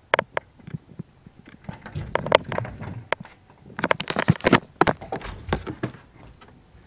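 A rapid, irregular string of knocks, clicks and scrapes, loudest in two clusters about two seconds in and around four to five seconds in.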